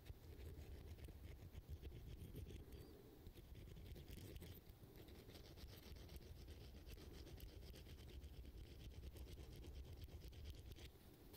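Faint, rapid scratching of a hook sharpener drawn back and forth across the point of a metal fishing lure's hook: many quick short strokes a second, metal rasping on metal.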